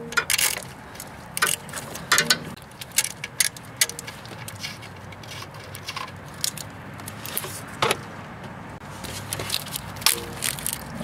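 Wrench turning a 12 mm nut off the alternator's back terminal: irregular metallic clicks and clinks in short runs.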